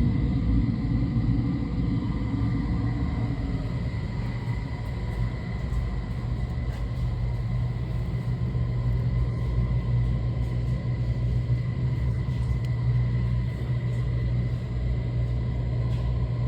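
Buffalo No. 66BX grinder running with a steady low hum and a thin high whine. A heavier rumble eases off during the first few seconds.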